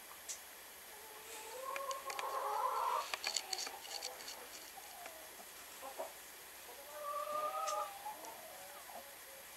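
Speckled Sussex hen on the nest while laying, giving two drawn-out calls, one starting about a second and a half in and a shorter one near seven seconds, with a few light clicks between them.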